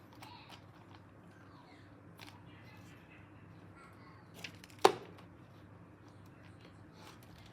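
Faint handling noise over a quiet background, with one sharp, loud click or snap nearly five seconds in.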